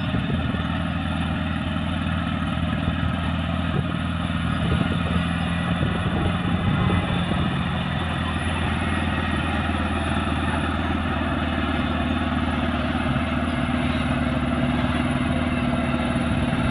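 Caterpillar D6R bulldozer's diesel engine running steadily, with a deep, even drone.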